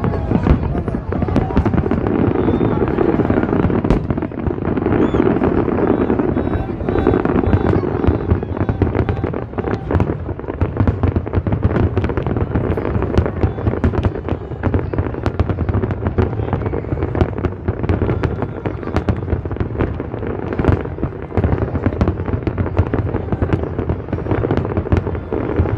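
Aerial fireworks bursting continuously, many bangs and crackles every second.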